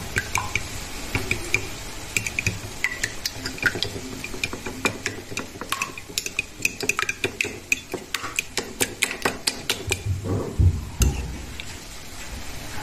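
Metal fork beating two raw eggs in a ceramic plate: rapid clicking of the tines against the plate, busiest in the middle, with a dull knock near the end.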